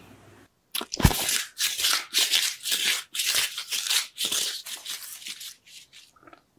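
Paper crinkling and rustling in a quick, irregular run of crisp bursts, with one low thump about a second in.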